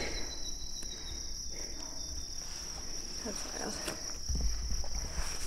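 Insects trilling: a steady, high-pitched insect chorus, with a brief low rumble about four seconds in.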